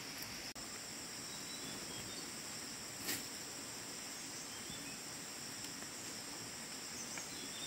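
Steady high-pitched chorus of insects, a continuous shrill drone, with one short sharp click about three seconds in.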